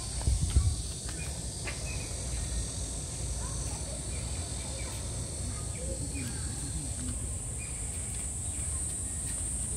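A steady, high-pitched insect chorus over low background noise and faint distant voices, with a brief low thump about half a second in.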